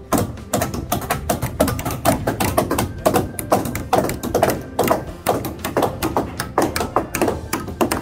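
Background music with a quick, tapping percussive beat, about five sharp strikes a second over faint sustained tones.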